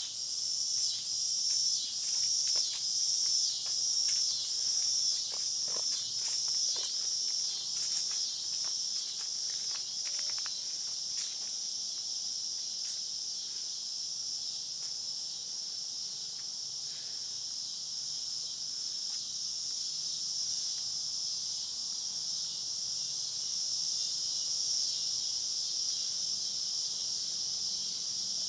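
Steady chorus of insects chirring at a high pitch, with scattered sharp clicks and taps over the first twelve seconds or so.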